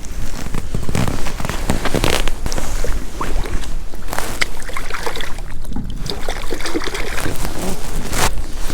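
Wind buffeting the microphone in a snowstorm, with water splashing and sloshing in an ice-fishing hole as a pike is let go back down it.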